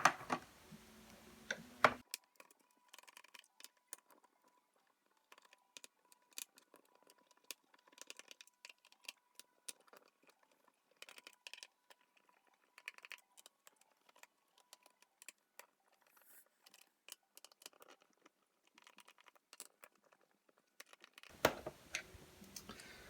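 Faint, scattered clicks and ticks of a screwdriver and screws working on the plastic case of an Akai MPK Mini keyboard as its back screws are taken out, in sped-up footage.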